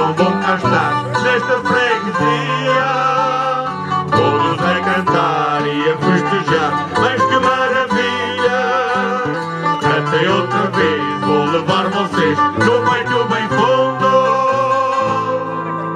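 Several acoustic guitars playing a lively folk tune together, with fast picked notes over strummed chords.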